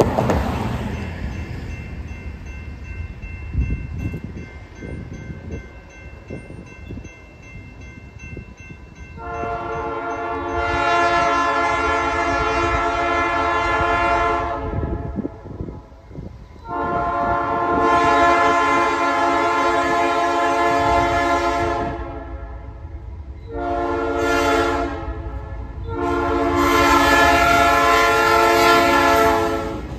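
Diesel locomotive's multi-chime air horn sounding the grade-crossing signal: two long blasts, one short, then a final long blast as the train reaches the crossing. The train's low rumble rises under the last blasts, and a vehicle passes at the very start.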